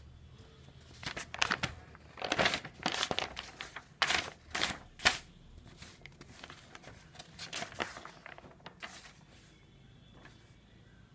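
Paper pages of a newspaper-printed book being handled and turned: irregular rustling and crinkling, loudest in the middle, dying away about nine seconds in.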